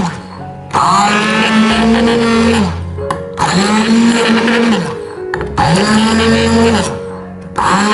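Arashi hand blender pureeing strawberries in a glass bowl, switched on in pulses: its motor whirs up to speed, runs for about two seconds and winds down. This happens three times, with a fourth pulse starting near the end.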